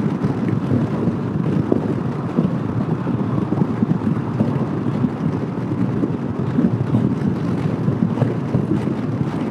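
Steady wind rush and road noise from riding a 2015 Honda PCX150 scooter at highway speed, heard at the rider with wind buffeting the microphone.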